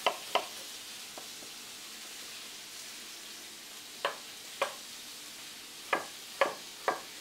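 Chef's knife striking an end-grain wooden cutting board while dicing an onion: two taps at the start, then a run of sharp taps from about four seconds in. Underneath, a steady sizzle of veal shanks browning in olive oil.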